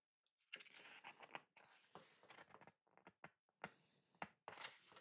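Faint rustling of paper pages and a few light clicks and taps as an artbook is handled at close range.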